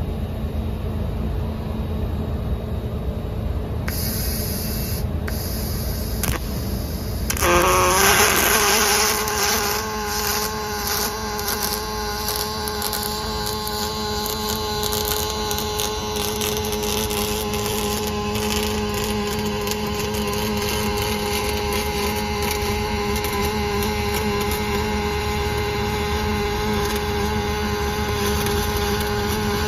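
Robotic arc welding: the machine hum and a hiss give way, about seven and a half seconds in, to the arc striking with a brief loud burst, then a steady crackling arc with a constant buzzing tone.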